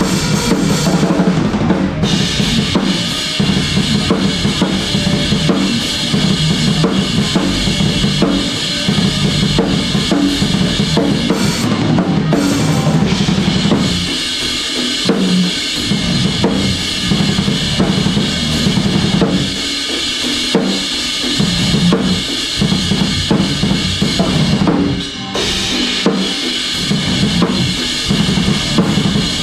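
Drum kit played through a rock song: kick drum and snare under a constant wash of cymbals, with a brief break about 25 seconds in.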